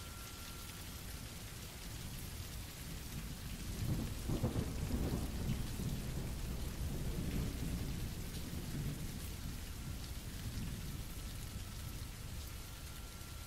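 Steady rain with a roll of thunder: the thunder builds about four seconds in, is loudest for a second or two, then rumbles away over several seconds.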